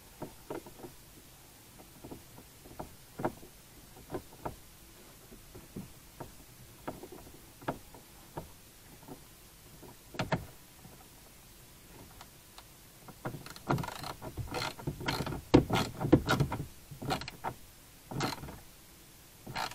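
Plastic car interior trim panel being handled and pressed into place by hand: scattered light clicks and knocks, then, about two-thirds of the way in, a busier run of louder knocks and rattles.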